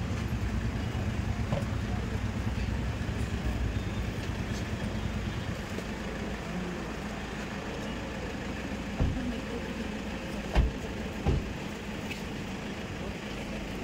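Car engine idling with a steady low rumble that eases off about halfway. Three short thumps follow near the end, the second the loudest.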